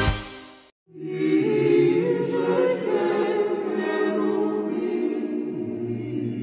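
A short intro music jingle fades out, then after a brief silence a choir starts singing unaccompanied, with long held chant-like notes.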